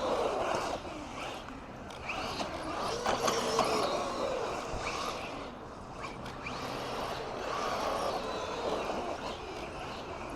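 MJX 10208 RC car's electric motor whining as it is driven, its pitch rising and falling with the throttle, over a steady rough hiss.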